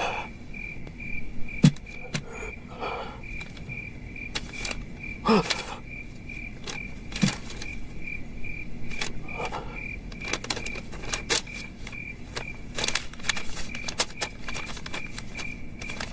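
A cricket chirping in a steady rhythm, two or three short chirps a second at one high pitch. Scattered small clicks and rustles come from an opium pipe and a paper wrapper being handled.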